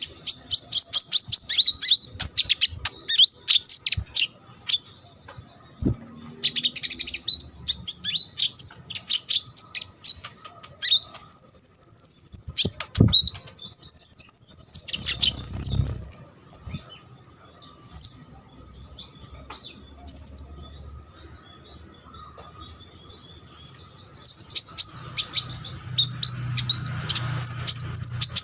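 Konin songbird singing a fast, varied song packed with imitated calls: bursts of rapid high chirps and trills broken by pauses, with two long, even high whistles near the middle.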